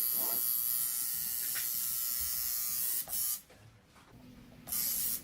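Tattoo machine buzzing steadily. About three seconds in it is switched off for a second or so, then runs again briefly near the end before stopping.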